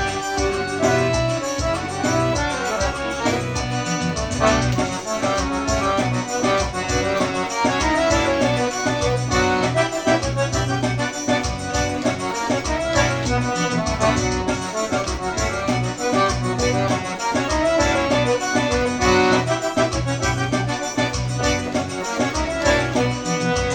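Accordion music: a lively tune played continuously over a steady bass beat.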